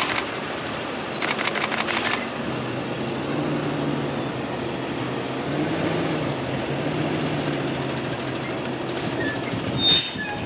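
Box truck's engine running at low speed as the truck moves slowly through a gateway, its pitch rising a little partway through. A quick run of sharp clicks comes about a second and a half in, and a brief louder sharp sound comes near the end.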